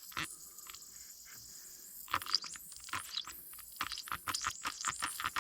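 Faint, irregular crackling and clicking, with denser and louder clicks from about two seconds in. This is typical of Big Blue leak-detection solution foaming and popping over a refrigerant leak at a brazed aluminum U-bend of an evaporator coil.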